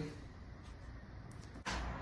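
Quiet room tone with a faint steady hiss; near the end a click, and the background hiss steps up louder.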